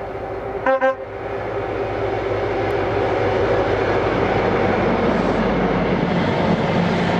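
High Speed Train (InterCity 125) with its class 43 diesel power car leading: a brief horn toot about a second in. The engine's drone and the wheels on the rails then grow louder as the train approaches and passes close by.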